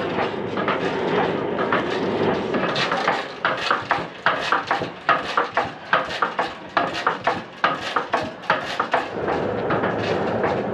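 A blacksmith's forge heating iron, with a steady rushing noise. From about three seconds in to about nine seconds in, a run of sharp, irregular clicks and knocks comes over it.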